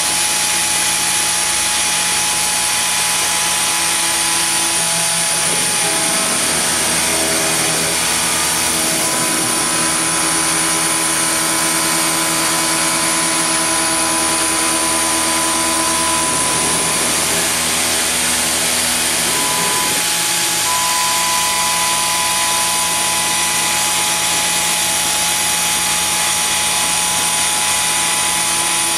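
Benchtop CNC mini-mill's spindle running as a quarter-inch high-speed steel end mill cuts aluminum, with a compressed-air nozzle hissing over the cut. The cutting tone changes about six seconds in and again near twenty seconds, the sign of aluminum chips welding to the cutter because the cut is not kept cool enough.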